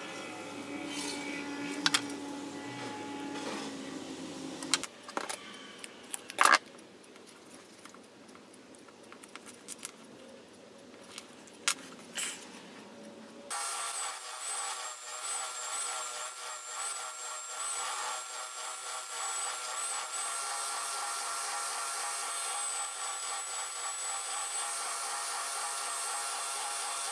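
A steady machine hum stops about five seconds in, followed by scattered knocks and clicks of small wooden parts being handled. From about halfway on, an oscillating spindle sander runs steadily with a thin high whine while a small piece of light wood is pressed against its drum to sand a curved edge.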